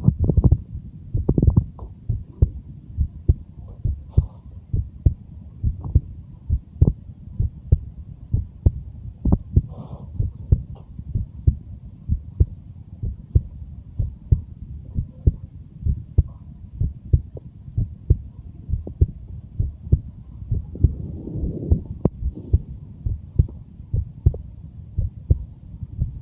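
Heartbeat of a 23-year-old, recorded close: steady low thumps, often in close pairs, a little more than one beat a second. A louder low rumble sits over the first couple of beats.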